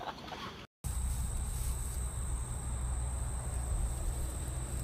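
Outdoor ambience: insects droning at a steady high pitch over a low steady rumble. It starts after a brief break about a second in.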